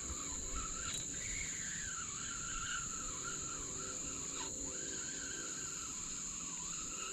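Insects droning in a steady high-pitched chorus, with a fainter tone that wavers up and down beneath it.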